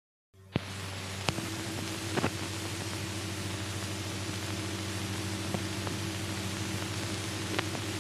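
Old optical film soundtrack running without narration: a steady hiss with a low hum, broken by a few sharp clicks and pops. It cuts in after a split second of dead silence at the start.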